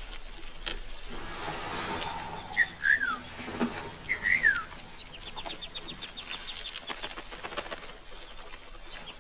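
Wild birds calling: three short, loud chirps that fall in pitch, about a third to halfway through, with a fast, high-pitched trill coming and going before and after them and scattered faint clicks.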